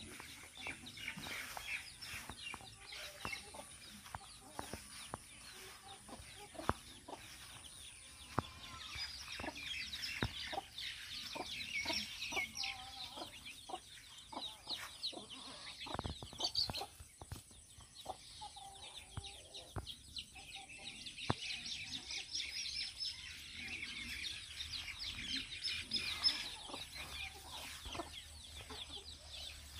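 Domestic chickens clucking softly as they forage, among scattered sharp clicks. A busy high chirping comes in two long stretches, about a third of the way in and again late.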